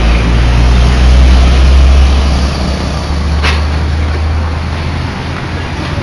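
Bus diesel engine with a deep rumble as the bus pulls away, loudest in the first few seconds and then easing off. A single brief sharp click about three and a half seconds in.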